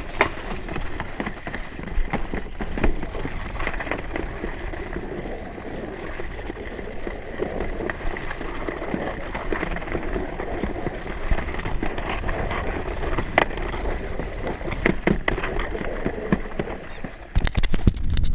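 Yellow plastic alpine slide sled running down a concrete track: a steady rumbling scrape of the sled on the concrete, with occasional sharp knocks as it jolts, and a cluster of loud bumps near the end.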